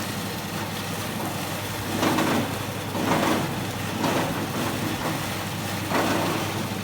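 Electric chili-cutting machine running with a steady motor hum, growing louder in short swells about two, three, four and six seconds in.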